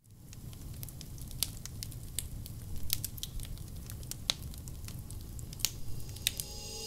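Campfire ambience: irregular crackles and pops from burning wood over a low, steady rumble.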